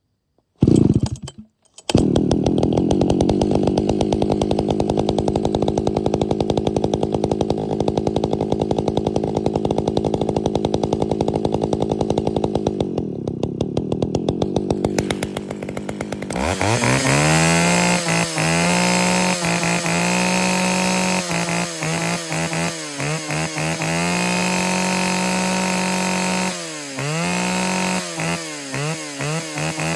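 Vintage two-stroke chainsaw firing briefly about half a second in, then catching and running steadily at idle. Its speed sags for a moment, and from about the middle on it is revved high with the throttle, let off and opened again many times.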